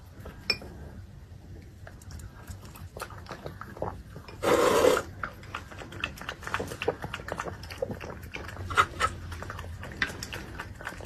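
A small dog eating prawns from a ceramic bowl of broth, with a quick run of wet chewing and lapping clicks against the bowl. About four and a half seconds in there is one loud half-second rush of noise.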